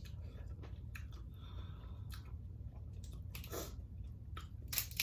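A person chewing and smacking a mouthful of seafood boil, with scattered short wet clicks. Two louder smacks come near the end.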